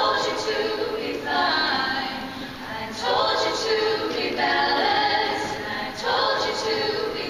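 Choir of mostly female voices singing, in phrases that start afresh about every second and a half.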